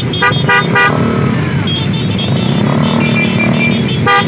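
Many motorcycle and scooter horns beeping over the running of a crowd of idling and creeping engines. Quick beeps, about five a second, come in the first second and again near the end, with longer held horn notes in between.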